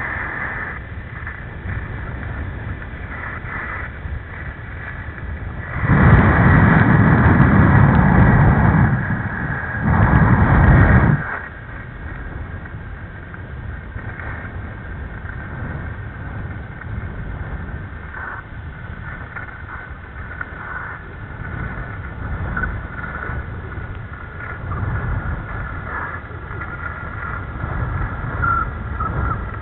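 Skis running and scraping over packed, track-scored snow while wind rushes over the camera microphone during a downhill run. There are two much louder bursts of rushing noise, about six seconds in for three seconds and again about ten seconds in for a second.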